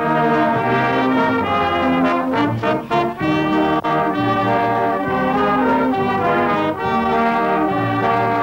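Music played by brass instruments: a run of held chords that change every half second to a second.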